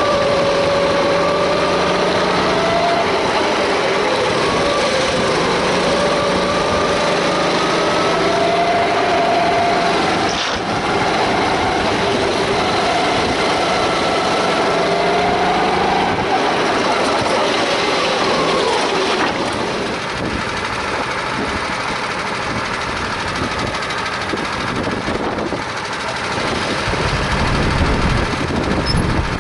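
Onboard sound of a Sodi rental kart's four-stroke engine rising and falling in pitch as it accelerates and lifts through corners. After about two-thirds the note turns rougher and less clear, and near the end a deeper rumble comes in.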